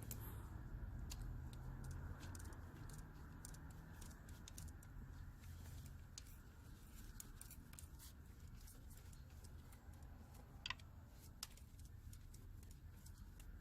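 Faint clicking of a torque wrench's ratchet as the water pump bolts are tightened to spec, with two sharper clicks about two-thirds of the way through, over a low hum.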